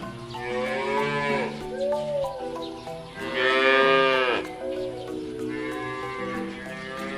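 Cattle mooing, three long calls that rise and fall in pitch, the loudest in the middle, over background music.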